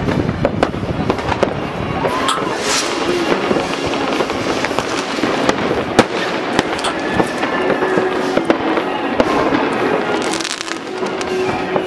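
Many New Year's Eve fireworks going off across a town at once: a continuous crackle of firecrackers and rocket bangs, with a sharp loud bang about six seconds in. A few whistling rockets rise through it.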